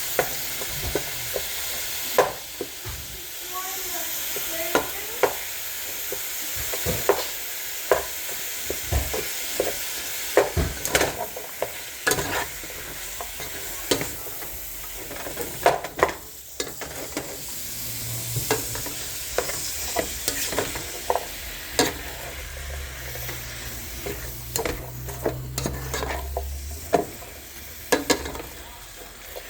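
Ground beef and onion sizzling in butter in a frying pan, with a steady hiss, while a utensil stirs it, scraping and clicking against the pan at irregular moments.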